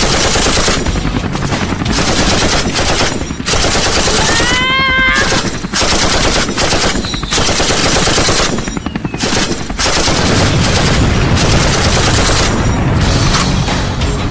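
Dubbed-in automatic gunfire sound effects: several guns firing rapid bursts with a few short breaks, and a brief pitched whine about five seconds in.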